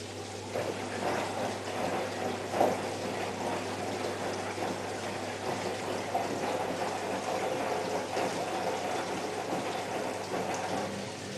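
Water rushing and splashing inside a Privileg Ergonomic 1600 S front-loading washing machine, starting about half a second in and easing off near the end, over a steady low hum.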